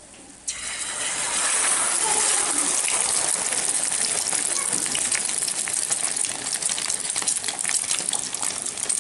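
Egg poured into hot oil in a frying pan, sizzling and crackling loudly; the sizzle starts suddenly about half a second in and keeps on.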